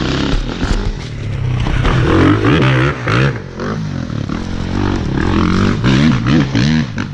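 Dirt bike engine running steadily, then revved up and down again and again in quick throttle blips from about a second and a half in.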